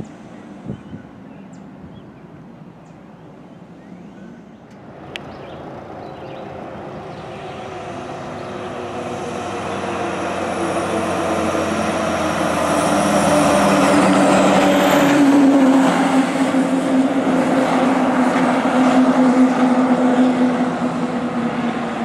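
A fire department heavy rescue truck's diesel engine running as the truck drives up and passes close by. It grows steadily louder, is loudest about two-thirds of the way in, and fades as the truck pulls away.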